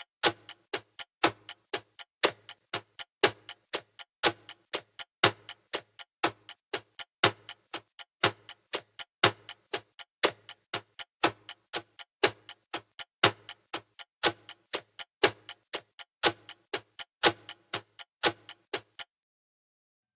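Analog clock ticking, about two ticks a second in an alternating tick-tock. The ticks stop about a second before the end.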